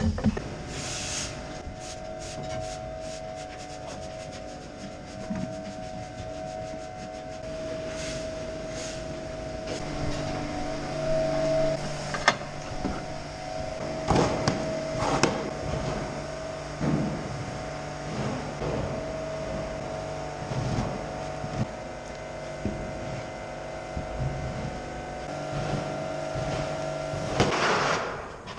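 Steady hum of barn machinery, several tones that shift in pitch now and then, with scattered metal clanks and knocks. A short burst of scraping comes near the end.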